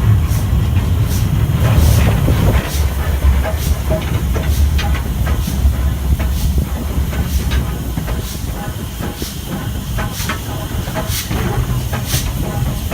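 Stanier 8F 2-8-0 steam locomotive running along the line: a steady low rumble with regular hissing beats, about one every three-quarters of a second.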